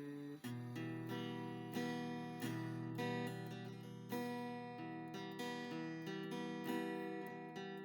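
Background music: acoustic guitar strumming chords at an easy pace.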